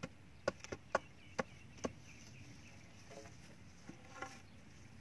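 Bamboo poles knocking while they are worked into place, about six sharp, irregularly spaced clacks in the first two seconds.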